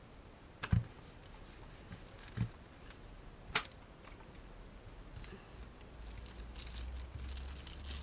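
A household steam iron being pressed over ironing paper on fuse beads on a wooden table: two dull knocks and a sharp click, then paper rustling from about six seconds in.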